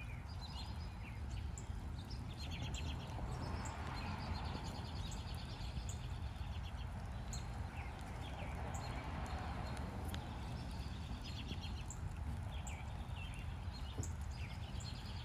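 Outdoor ambience: small birds chirping and trilling over and over above a steady low rumble. A couple of faint clicks come late on.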